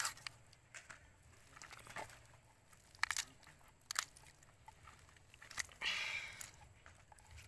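Raw whole chicken being split with a knife and prised open by hand: bones and cartilage cracking and crunching in a few sharp cracks, with a brief rasp about six seconds in.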